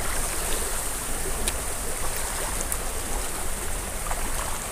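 Choppy sea water lapping and splashing against rocks and a concrete seawall: a steady rushing noise with a low rumble underneath and a few faint ticks.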